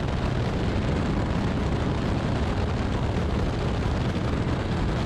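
Steady in-flight engine and wind noise of a Fokker D.VII biplane with its original Mercedes D.III inline six-cylinder engine, heard from a camera mounted on the aircraft, with a heavy rumble and wind rushing over the microphone.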